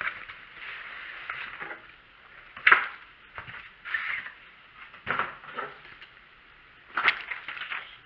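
A cardboard shipping box being wrestled open as a fabric backpack is pulled out of it: cardboard scraping and rustling, with three sharper knocks spaced a couple of seconds apart.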